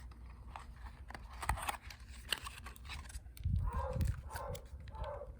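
Wind buffeting the microphone as a low rumble, gusting harder about three and a half seconds in, with scattered small clicks and rustles of handling.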